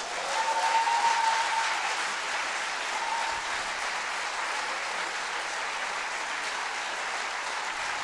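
Concert audience applauding, swelling in the first second and then holding steady, with a long cheer from the crowd over it in the first two seconds.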